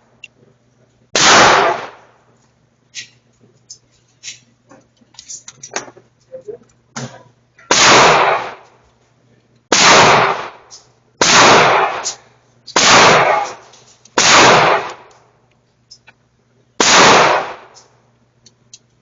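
Seven gunshots fired one at a time at a shooting range, each trailing off over about a second. The middle shots come about one and a half seconds apart, with fainter pops and clicks in between.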